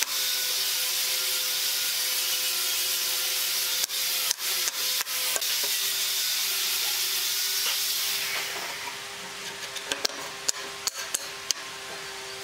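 Pine strips knocking lightly on a wooden tabletop as they are pushed and squared up by hand: a few short taps a little past a third of the way in, and a few more near the end. Under them runs a steady hiss that drops away about two-thirds through.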